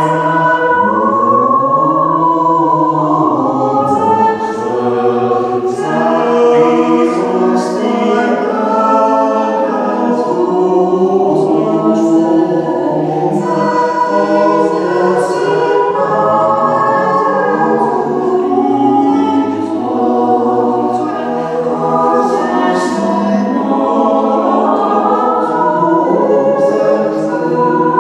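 A choir singing, many voices holding and moving between sustained notes.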